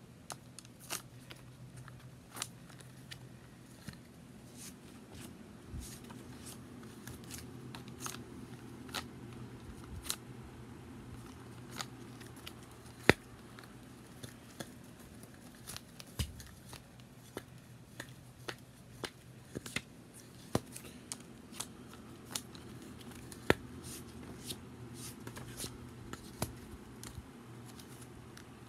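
A small spiral-bound Blue's Clues notebook with a red plastic coil being handled up close: irregular sharp clicks and taps from the coil and pages, with soft paper rustling.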